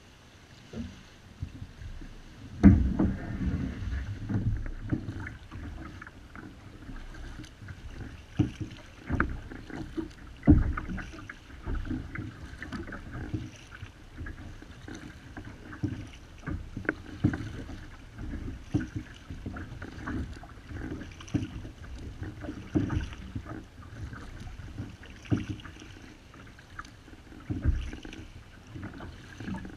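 Kayak paddle strokes on a Wilderness Systems Ride 135 fishing kayak: the blades dip and splash, with knocks against the hull, roughly one every second or so, and the loudest comes about three seconds in. Water laps along the hull between strokes.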